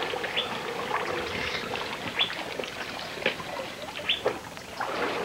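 Water trickling and splashing at a waterhole as African bull elephants crowd in to drink, with short sharp plinks about once a second.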